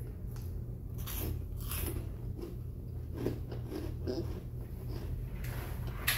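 Hot Cheetos being bitten and chewed up close, a few irregular crunches through the middle, with a sharp click near the end over a steady low hum.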